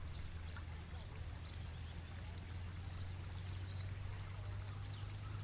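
Water running and trickling around a small boat on a canal, over a steady low hum, with short faint high chirps throughout.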